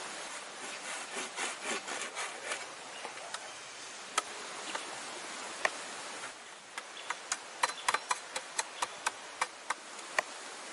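Hand saw cutting through a log in quick back-and-forth rasping strokes for the first couple of seconds. After a break, a string of sharp chops of a blade into wood, about three a second, as a stick is cut to a point on a stump, over a steady background hiss.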